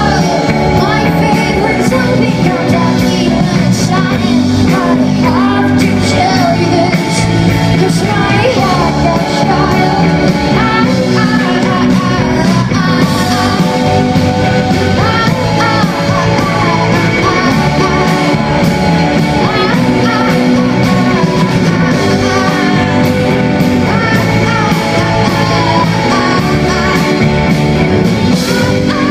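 Indie folk-rock band playing live: electric guitars, bass, drums and keyboard with singing, heard loud from the audience.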